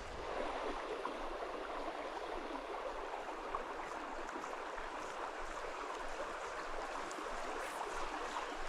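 Creek water flowing, a steady rushing sound.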